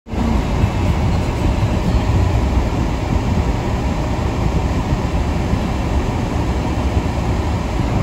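Walk-behind snowblower running steadily while clearing a snowy driveway.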